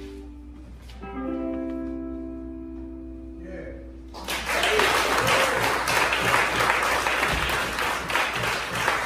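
A jazz combo's final sustained chord, guitar to the fore, rings out; about four seconds in the audience breaks into applause and cheering.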